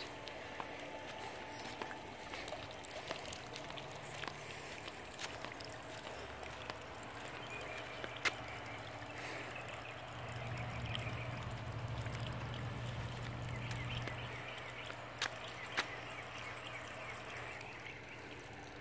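Swimming pool water trickling and lapping, with a low hum that swells for a few seconds in the middle and a few sharp clicks.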